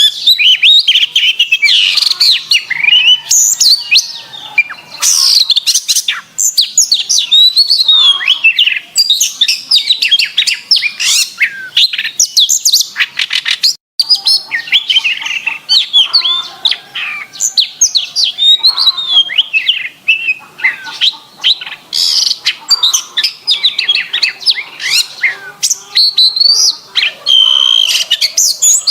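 Domestic canary singing continuously in a fast, loud stream of chirps, whistled glides and trills, broken by a split-second gap about halfway.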